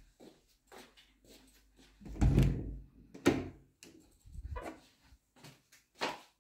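A door being opened and handled: one heavy thump about two seconds in, then sharp clicks a second later and again near the end, with lighter knocks between.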